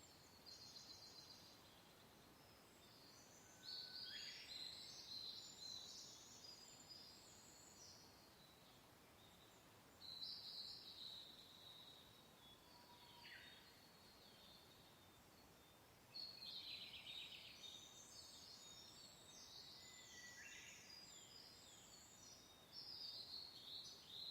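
Faint songbird song: several bursts of high, quick twittering phrases, each a few seconds long, over a soft, even hiss of gentle wind.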